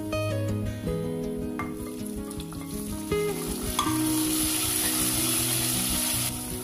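Hot oil sizzling in a pressure cooker as onions and dal fry and a wooden spatula stirs them; the sizzle gets much louder about three seconds in, as sliced tomato goes into the oil, and drops back sharply near the end. Background music plays underneath.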